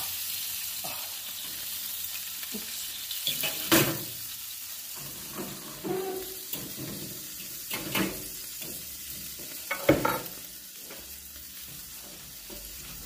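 Hot grease and a hot dog sizzling on the pulled-out drip pan of a vintage UDICO BroilMaster electric broiler oven, with several sharp metal knocks and scrapes as the pan and a fork are handled.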